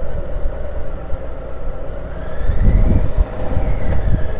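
Road vehicle engine running as the vehicle drives off, a steady drone with low rumble. A faint whine rises and falls about halfway through.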